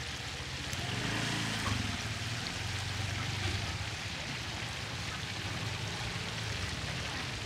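Duck deep-frying in a big pot of oil, a steady bubbling sizzle.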